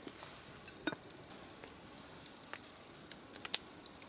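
Small campfire crackling faintly, with scattered sharp clicks and light knocks as a metal cook pot is handled and hung over the flames.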